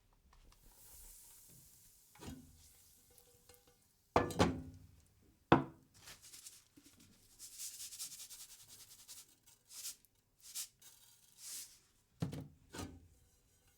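Kitchen sounds of eggs frying in a pan: scattered knocks and scrapes of utensils on cookware, the loudest about four and five and a half seconds in and again near the end, between short spells of high sizzling hiss.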